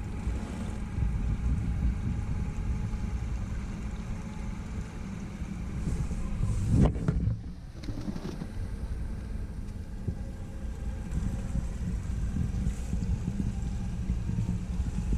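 Boat engine running steadily at trolling speed, a low rumble, with a sharp thump about seven seconds in.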